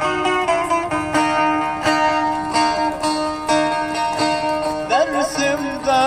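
Instrumental break in a Kurdish folk song: a plucked string instrument plays a quick run of notes over a steady low drone. Near the end a wavering melody line with vibrato comes in.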